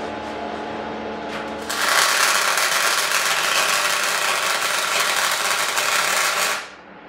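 Solid-wire MIG welding arc on argon/CO2 shielding gas, crackling loudly and steadily for about five seconds from just under two seconds in, then cutting off sharply. The gas flow is turned down too low, which gives an unstable, spattery arc. Before the arc strikes there is a steady low hum.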